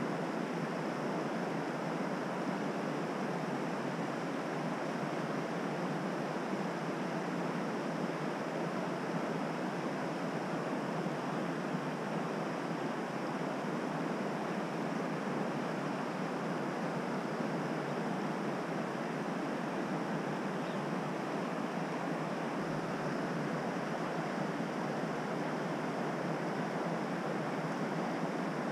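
Steady, even rush of flowing stream water, unchanging throughout.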